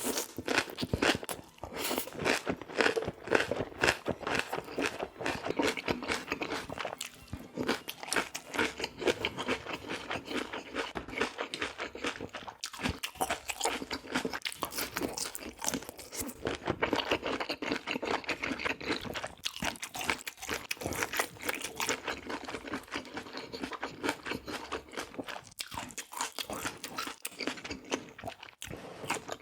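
Close-miked eating: a person crunching and chewing food, with a dense run of rapid mouth clicks throughout.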